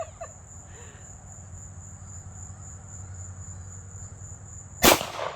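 Crickets chirring steadily, with a single sharp gunshot near the end.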